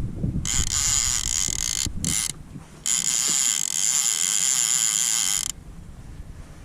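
Fishing reel's ratcheting mechanism, heard in three bursts: a run of about a second and a half, a short one, then a longer one of about two and a half seconds.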